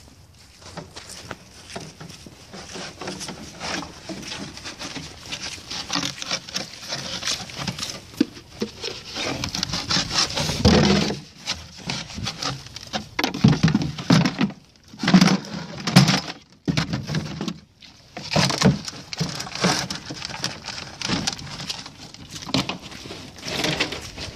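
Horses eating hay up close: a steady run of crisp crunching and rustling as they chew and nose through the hay, with louder, rougher stretches about halfway through.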